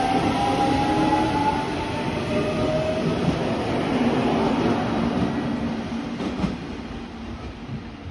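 JR Kyushu 817 series 3000-number electric multiple unit pulling out and accelerating. Its traction motors give a whine that rises in pitch over the first few seconds, over the rumble and clack of the wheels, and the sound fades as the train moves off.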